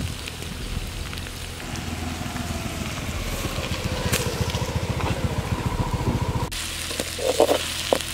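Okra frying in a steel kadai over a wood fire, a steady sizzle under a low pulsing engine-like hum. About six and a half seconds in the sound changes abruptly to a metal spatula scraping and knocking against the pan as the okra is stirred.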